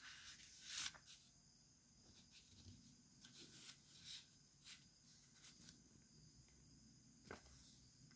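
Near silence, with a few faint, brief rustles and taps of paper sheets being handled, the clearest about a second in.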